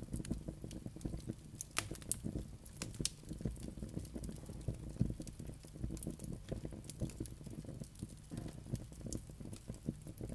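Campfire crackling, with irregular snaps and pops.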